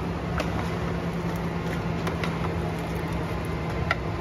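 Metal utensils clinking a few times against steel cooking pots, the last clink the sharpest, over a steady low mechanical hum.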